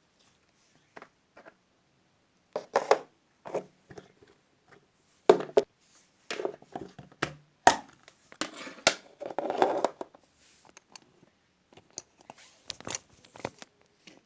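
Slime being handled by hand: irregular crackling, clicking and crinkling sounds, busiest in the middle.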